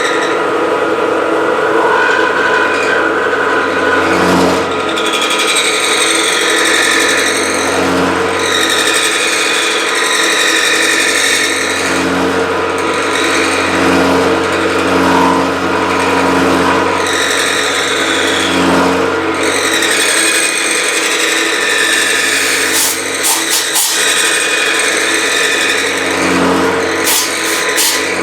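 Milling machine taking face cuts on a metal block: the spindle motor runs steadily while the cutter's chatter swells and fades every few seconds as it makes pass after pass. A few short clicks come near the end.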